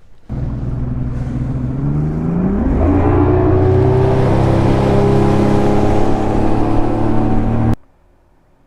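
A boat motor starts running loud and steady. It rises in pitch as it speeds up about two to three seconds in, then holds, and it cuts off abruptly near the end.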